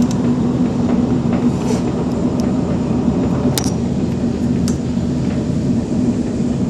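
Moving train heard from inside the carriage: a loud, steady low rumble, with a few sharp clicks or rattles about halfway through.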